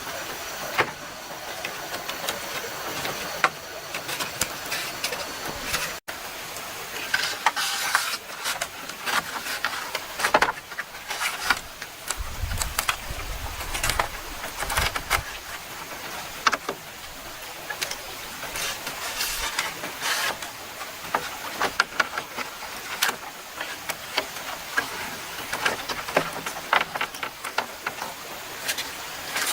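Irregular sharp knocks and clicks, over the steady rushing hiss of a stream.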